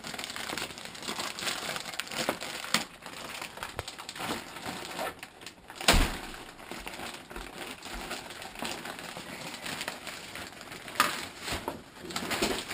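Clear plastic bag crinkling and rustling as it is ripped open and pulled off a pair of skis. A sharp knock stands out about six seconds in, with smaller ones about three and eleven seconds in.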